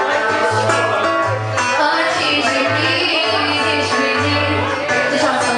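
Samba music played on acoustic guitar (violão), with a steady, rhythmic bass line under the strummed chords.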